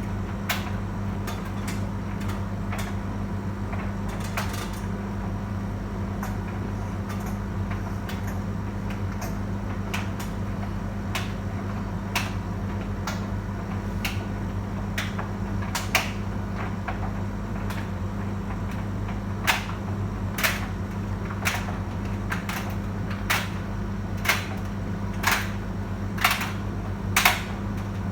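Beko tumble dryer running with a steady motor hum as the drum turns, with sharp clicks and knocks from the tumbling load striking the drum. The clicks are sparse at first and come about once a second in the second half.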